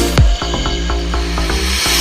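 Electronic dance music. The kick beat drops out just after the start, leaving short repeated synth notes, and a noise sweep rises toward the end.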